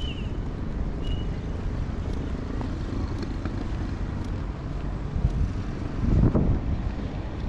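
Outdoor street ambience: wind rumbling on the microphone with a low background of traffic, swelling louder about six seconds in.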